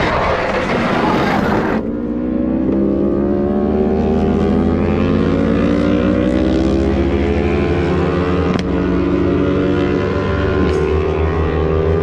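A crashed motorcycle sliding through gravel and dirt, the spray of stones and grit making a harsh, loud noise that stops about two seconds in. After that an engine runs steadily, its pitch creeping slowly up, with a couple of sharp knocks.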